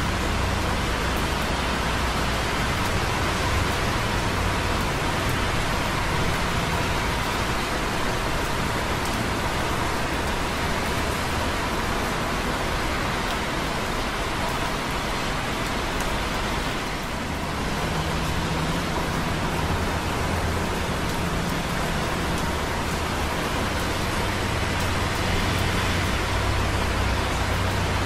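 Light rain dripping on concrete close by, over a steady rumble and hiss of busy traffic on wet roads below; the traffic rumble eases briefly about two-thirds of the way through.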